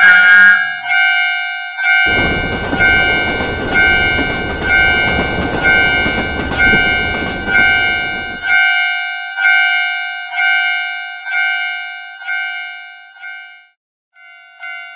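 Japanese railroad-crossing warning bell clanging steadily, about three strikes every two seconds, while a train rushes past for about six seconds. After the train has gone, the bell grows fainter, stops briefly near the end, then starts again.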